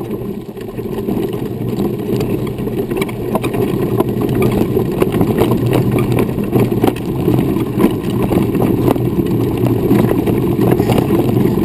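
Running wheelchair's wheels rolling over a gravel dirt road: a steady rough rumble with small stones crackling and ticking under the tyres, a little quieter for the first second.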